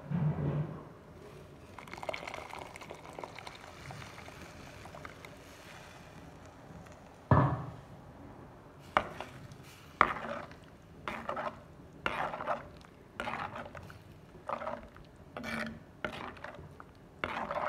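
A creamy liquid is poured into a pot of turkey-berry gravy. Then a ladle stirs it in a run of short strokes about once a second, scraping and clinking against the pot, with one sharper knock a little before the stirring starts.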